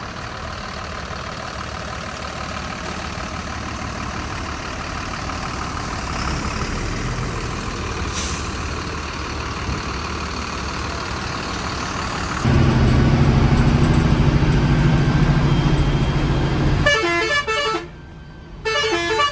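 Bharat Benz coach's diesel engine running as the bus is reversed out, becoming much louder about two-thirds of the way through. Near the end a horn sounds twice.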